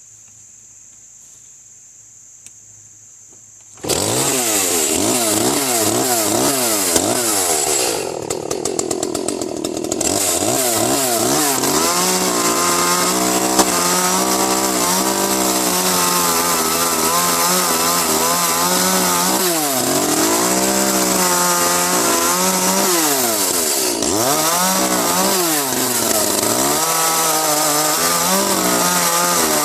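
Crickets chirring steadily, then about four seconds in an Echo CS-310 chainsaw's 30.5 cc two-stroke engine comes in loud. It revs up and down, drops back to lower revs briefly, then runs at high revs, cutting into a pine trunk bent under tension.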